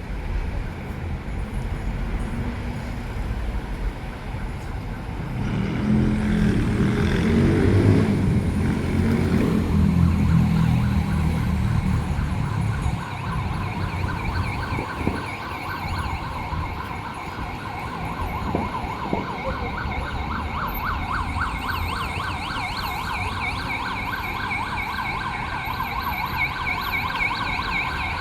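City street traffic: a heavy vehicle's engine rumbles past about a quarter of the way in, then an emergency vehicle siren with a fast warble starts about halfway through and keeps sounding.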